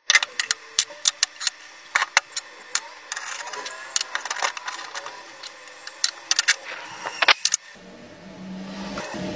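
Sharp clacks and knocks of heavy cast-iron machine parts being set down and handled on a wooden workbench, a quick irregular string of hits. Near the end the knocking stops and a low steady hum takes over.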